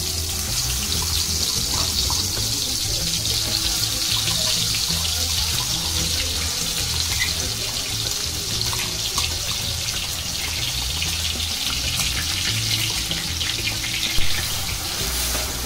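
Ground coconut-onion masala paste frying in hot oil in a kadhai: a steady crackling sizzle. Near the end there is a single sharp knock as a spatula strikes the pan.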